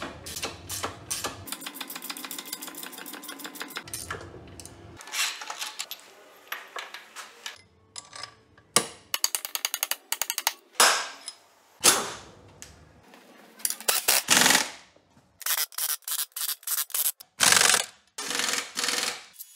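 Hand-tool work on a ZF 16S 1820 TO truck gearbox: sharp metal hammer knocks, a few single hard blows, with runs of fast ratchet-wrench clicking as bolts inside the bell housing are turned.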